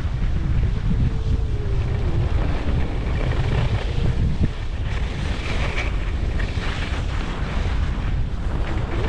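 Wind buffeting the microphone of a skier moving downhill, a steady low rumble, with the hiss of skis sliding over groomed snow.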